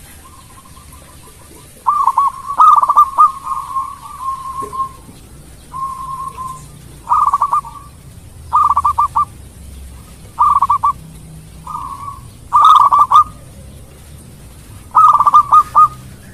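Zebra dove (perkutut) calling: a run of rolling, trilled coos, short phrases repeated every second or so, with a faint quick run of notes before the first loud phrase.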